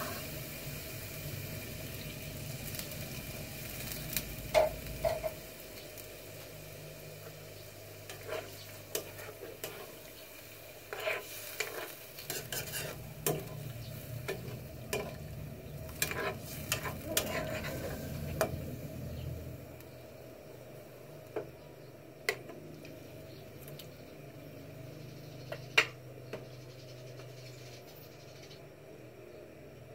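A utensil stirring chicken pieces in a metal pan of simmering adobo sauce. It clinks and scrapes against the pan over a steady sizzle. The clinks are thickest in the middle, with a few sharp knocks near the end.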